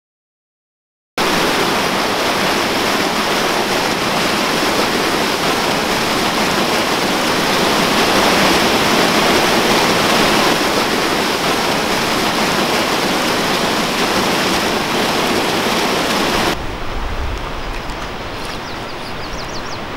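Creek whitewater rushing over rocks, loud and steady, starting about a second in. About sixteen and a half seconds in it cuts off suddenly to a quieter outdoor stretch with low rumbles and a few faint high chirps.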